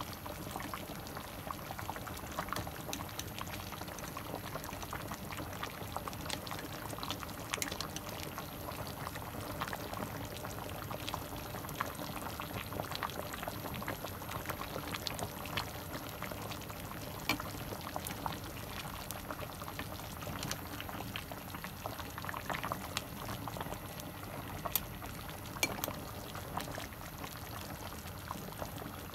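Tuna-head broth boiling in a large stainless steel pot: a steady bubbling with scattered small pops, and now and then a sharp tick.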